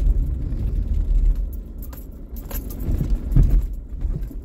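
Car driving slowly over a rough, rutted dirt trail, heard from inside the cabin: a steady low rumble from tyres and suspension, with scattered rattles and knocks as the car jolts over bumps, the heaviest about three and a half seconds in.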